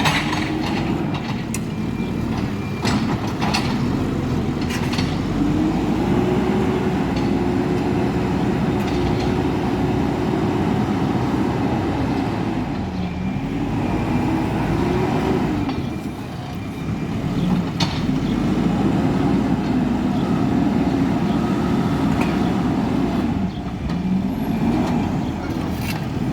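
Hidromek HMK backhoe loader's diesel engine working under load, its revs rising and falling again and again as the hydraulics work, with several metallic clanks.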